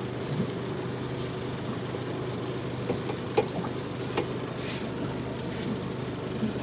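Small boat's outboard motor idling steadily, with a few light knocks or clicks around the middle.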